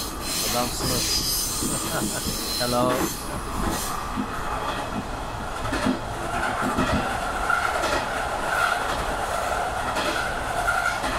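Diesel railcar running along the track, heard from inside the driver's cab, with running noise and rail clicks. About halfway in, a steady high squeal of the wheels sets in and holds.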